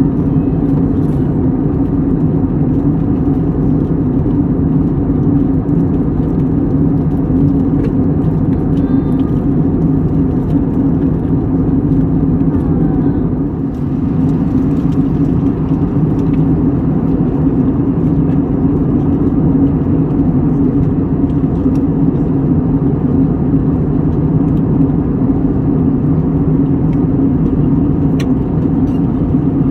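Steady low engine drone, continuous and unchanging, with a few faint clicks.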